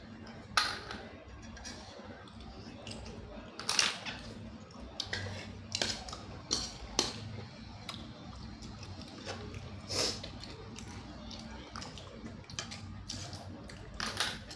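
Blood cockle shells clicking and clattering against each other and a plate as the cockles are pried open, a scattering of sharp, separate clacks.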